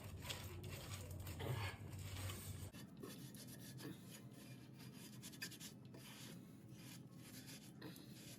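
Faint, irregular rubbing and scrubbing strokes of a cleaning cloth or towel wiping down a freshly sprayed floor around a toilet flange. A low background hum stops about three seconds in.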